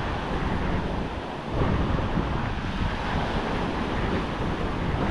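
Surf breaking and washing up the beach, with a brisk offshore wind buffeting the microphone; the wash swells about one and a half seconds in.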